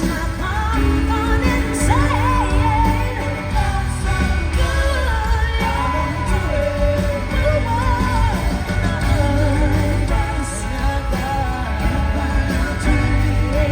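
Live pop song playing loud, a singer's voice over a band with strong, steady bass.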